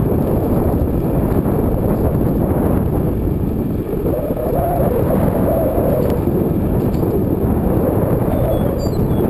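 Wind buffeting the microphone of a camera on a moving bicycle: a loud, steady low rush of noise.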